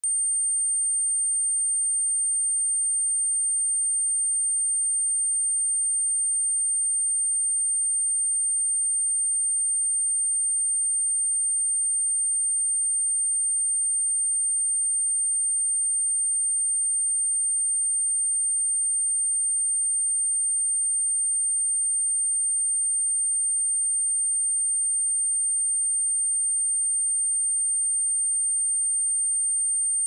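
A single continuous 8772 Hz sine-wave test tone: one steady, high-pitched pure tone that holds without change.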